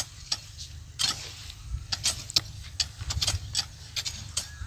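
Hoes chopping and scraping into dry field soil, several being worked at once: irregular short knocks and scrapes, over a low steady rumble.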